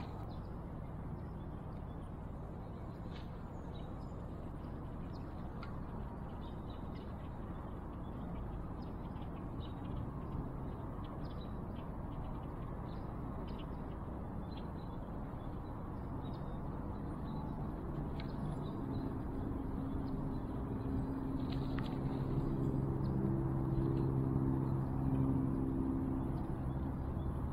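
Quiet outdoor ambience on the water with faint scattered clicks. About two-thirds of the way in, a boat motor's low, steady hum fades in, grows louder and holds to the end.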